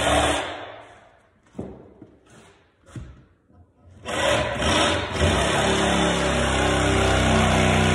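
Reciprocating saw cutting into the wooden nosing of a stair tread: a short run that dies away, two brief trigger blips, then steady cutting from about four seconds in.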